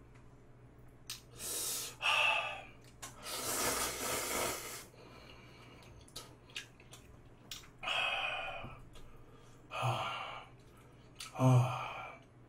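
A man breathing hard through his mouth: about five heavy breaths and gasps, the last two with a voiced 'hah'. It is the burn of Buldak fire noodles, which he finds very spicy.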